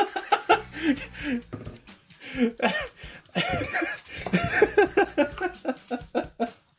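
A man laughing in many short voiced bursts, coming thickest and fastest in the second half.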